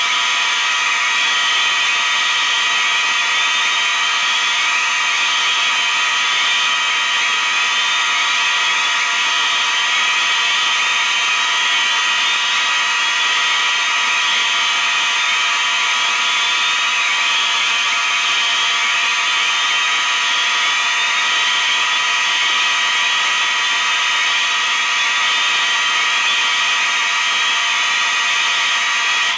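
A bank of 36 fire alarm devices, mostly mechanical horns plus electronic sounders, sounding all at once in a loud, steady din of many overlapping tones. They all cut off together at the very end.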